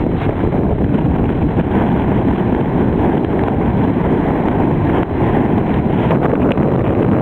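Strong gusting wind buffeting the microphone, a loud, steady, fluttering rumble.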